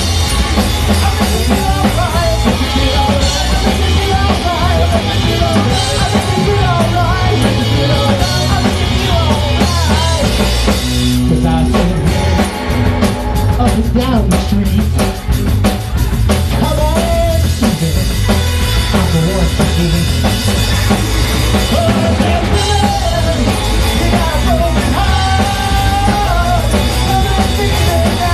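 Live punk/garage rock band playing: loud drum kit, distorted electric guitar and bass, with a man singing lead. About twelve seconds in, the band thins out for a few seconds to mostly drum hits, then comes back in full.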